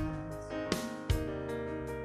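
A small rock band playing live: keyboard chords and electric bass held under a few sharp drum hits.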